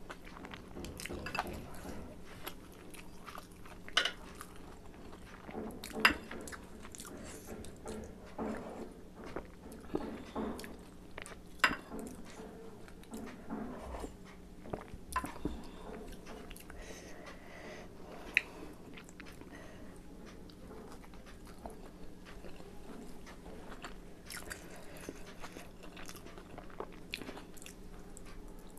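Close-miked chewing and biting of chicken momo dumplings: soft, wet, irregular mouth sounds with a few sharp clicks, the loudest about six and twelve seconds in.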